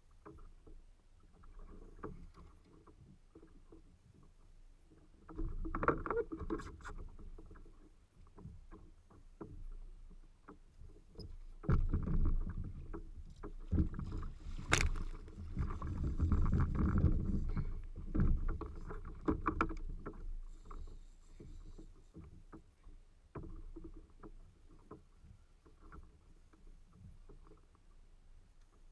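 Water sloshing against a fishing kayak's hull with wind on the microphone, louder about five seconds in and again from about twelve to twenty seconds, with one sharp knock near the middle.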